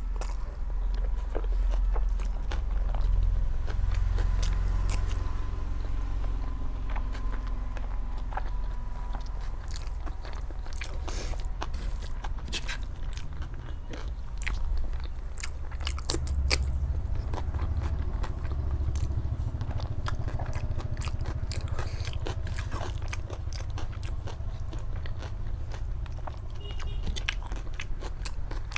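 A person chewing a mouthful of rice and curry close to the microphone, with many short sharp clicks and smacks of the mouth.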